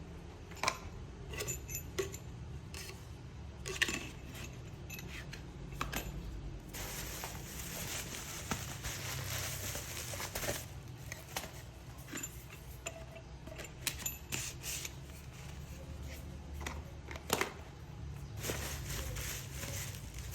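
Metal parts of a hollow-core hole saw drill bit set clinking and tapping as they are handled, with a few seconds of rustling in the middle and again near the end.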